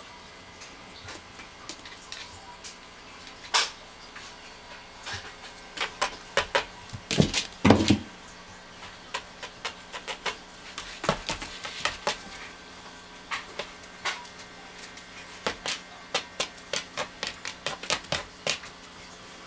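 A Norwegian Forest Cat at play: irregular clicks, taps and knocks, with the loudest cluster of thumps about seven to eight seconds in and quicker runs of light taps later on.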